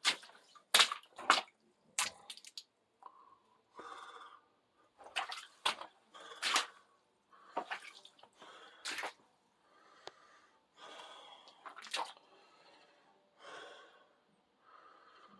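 Water dripping and splashing: irregular sharp drops, a dozen or so, with short stretches of softer water noise between them.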